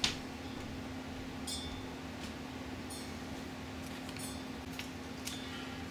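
Faint scattered clicks and light metallic tinks as a thin wire and small 3D-printed plastic parts are handled, one tink about a second and a half in ringing briefly. A steady low hum runs underneath.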